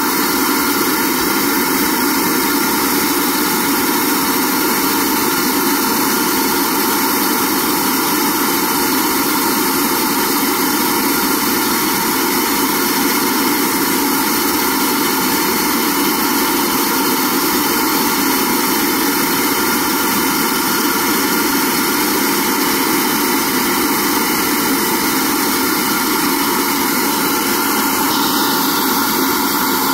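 Cylinder head flow bench running at a steady draw, its motors pulling air through an intake manifold runner: a loud, even rush of air over a steady motor hum.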